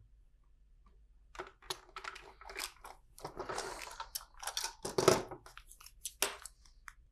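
Hands handling LEGO plastic pieces: scattered clicks and clacks of bricks, with a stretch of rustling in the middle and a sharper click about five seconds in.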